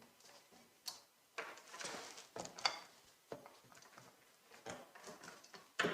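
Scattered clicks and short bursts of clatter from objects being handled in a small room. There is a sharp click about a second in, a busier stretch of clatter soon after, and a louder sharp knock near the end.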